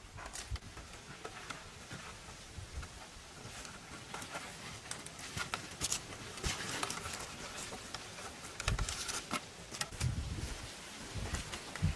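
Hand work on a wooden pole frame: poles knocking together and plant-fibre lashing strips rustling and creaking as a joint is wrapped and pulled tight. Irregular light clicks run throughout, with a few dull thumps in the second half.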